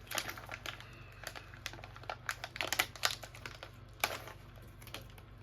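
Plastic MRE trail mix pouch being handled and opened, crinkling and crackling in quick irregular clicks, with a few sharper crackles.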